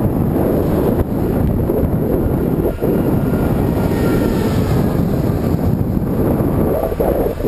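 Strong wind buffeting the microphone of a bicycle-mounted camera while riding. A freight train can be heard faintly as thin tones in the middle.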